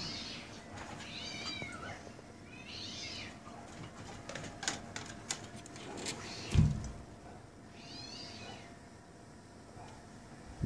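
A cat meowing: four short calls, three in the first few seconds and one more about two-thirds of the way through. A few light clicks, and a single dull thump about two-thirds of the way in, the loudest sound.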